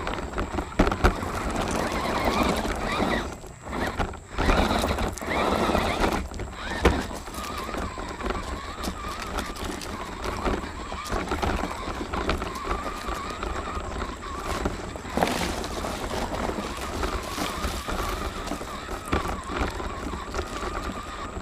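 RC rock crawler's motor and gears whining, the pitch wavering with the throttle, as it crawls over creek-bed rocks, heard from on board. The tyres and chassis clatter and knock against the stones, most heavily in the first several seconds, with the whine steadier after that.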